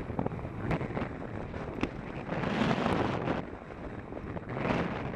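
Wind buffeting the microphone of a camera moving along a road, over a steady road rumble, with a few sharp clicks. The wind swells louder for about a second some two and a half seconds in, and again briefly near the end.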